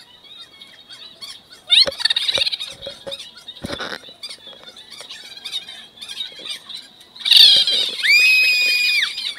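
Shrill squeals: a short wavering one about two seconds in and a louder one held level for about a second near the end, over a faint steady high tone.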